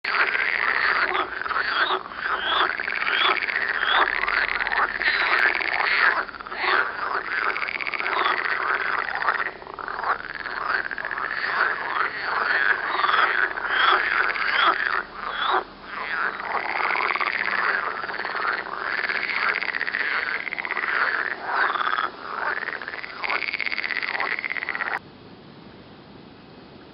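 A chorus of Pelophylax water frogs (green frogs) croaking, many overlapping calls repeating in quick runs. The calling breaks off suddenly near the end, leaving only a faint hiss.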